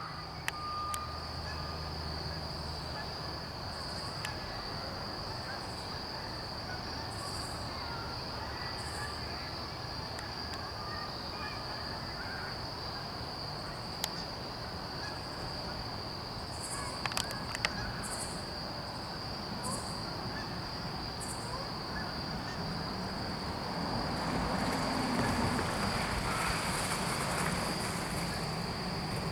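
Steady, high-pitched chorus of crickets trilling on one pitch, with a few brief higher chirps. About three-quarters of the way through, a broader rushing noise swells for a few seconds and then eases.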